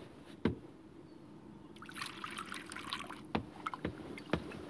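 Breakfast-table sounds in a cartoon soundtrack: a few light knocks of wooden bowls and spoons on a wooden table, with about a second of soft, liquid-like noise about two seconds in.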